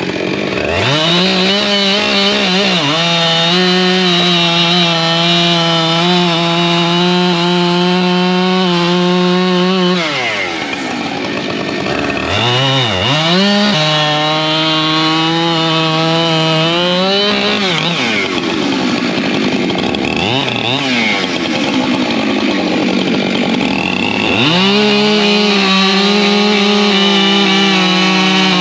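Husqvarna two-stroke chainsaw held at full throttle for several seconds at a time. It drops back to idle about ten seconds in, revs in a few quick blips, and runs up to full speed again twice more.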